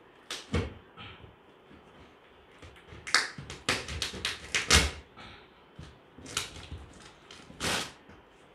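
Packing tape and a paper shipping label being cut with a utility knife and torn off a cardboard box: a series of short ripping and scraping sounds. There are a few near the start, a quick run in the middle, and a few more near the end.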